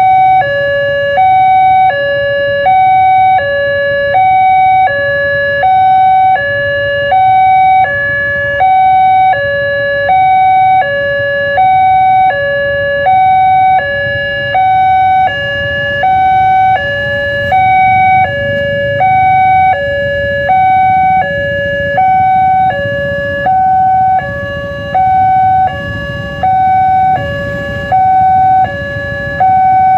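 Railway level-crossing warning alarm sounding from the loudspeaker on the crossing signal: two electronic tones, one higher and one lower, alternating steadily at about two-thirds of a second each, the warning that a train is approaching and the barrier is down. A low engine rumble runs underneath.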